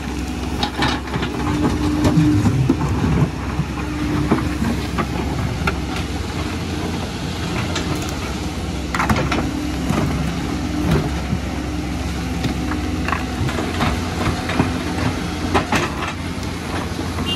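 Diesel engines of two crawler excavators, a Kobelco and a Hyundai, running steadily under load, with a hum that swells and fades as the hydraulics work the booms and buckets. Scattered knocks and scrapes of the buckets against rock and dirt.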